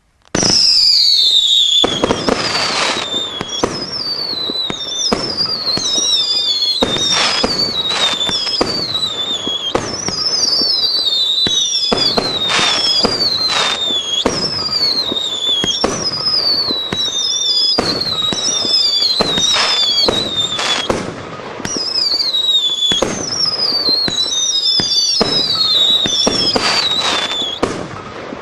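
Parente 'Werwolf' 35-shot fireworks cake firing. It starts about half a second in and keeps up a rapid string of shots, each with a whistle falling in pitch, with a short lull about two-thirds of the way through.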